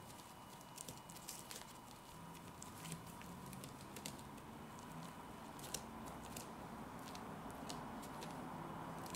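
Fingers spreading and pressing sticky sushi rice over a sheet of nori on a bamboo rolling mat: faint, irregular little clicks and crackles.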